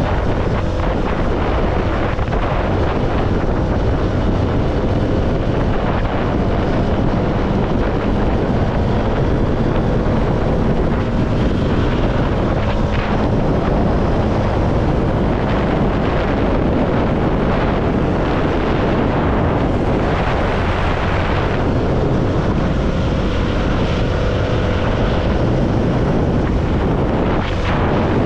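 CFMoto motorcycle engine running steadily while riding at speed, heavily mixed with wind noise on the microphone.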